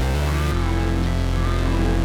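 Background music with a steady bass line and sustained notes that change about every half second.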